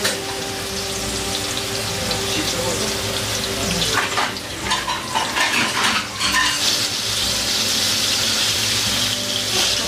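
Minced pork, garlic and fermented soybeans sizzling in a hot wok as oyster sauce and other seasonings go in. The sizzle grows louder about halfway through, with a few brief clatters of bottle or utensil against the wok.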